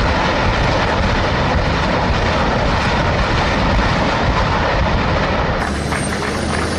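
Truck-mounted multiple rocket launcher firing a salvo: a loud, continuous roar of rocket motors as the rockets leave the launcher. The sound changes about five and a half seconds in.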